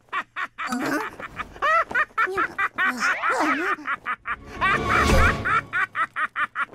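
Cartoon characters' wordless, gibberish-style voices: rapid squawking exclamations and a man's excited shouting, over background music. The loudest moment, a burst with a deep low rumble under it, comes about five seconds in.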